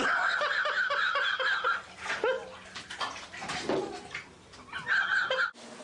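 Bathwater splashing in a filled bathtub as a cat falls in and thrashes at the tub's edge. The splashing starts suddenly, is loudest for the first two seconds, comes back in shorter bursts, and cuts off suddenly near the end.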